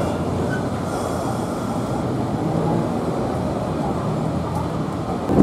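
Kumamoto city tram streetcar pulling into a stop: a steady rumble of wheels on rail and running gear.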